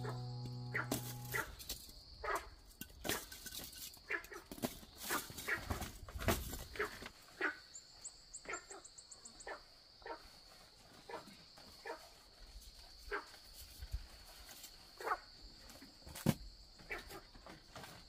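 A dog barking in short single barks, roughly one a second and irregular, over a steady high hum.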